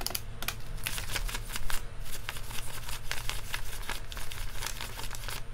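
Paper banknotes, US twenty-dollar bills, being counted by hand: a fast, steady run of short papery flicks, several a second, as bills are peeled off the stack one by one.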